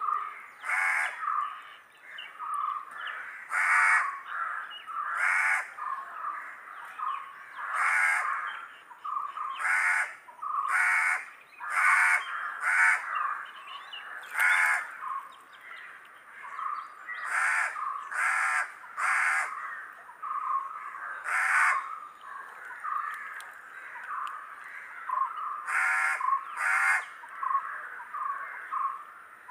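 Birds calling: short, harsh calls repeating every one to two seconds, with softer chirping between them.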